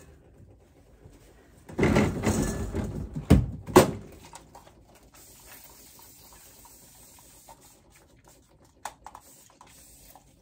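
Handling noise at a steel work counter: a burst of rustling about two seconds in, then two sharp knocks, followed by faint small clicks and rubbing as things are wiped down and moved.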